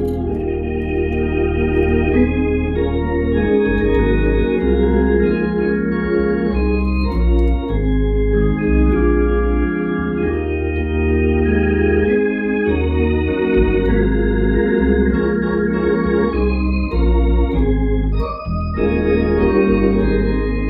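Hammond console organ playing worship music: held chords over bass notes, the chords changing every second or two, with a short break near the end.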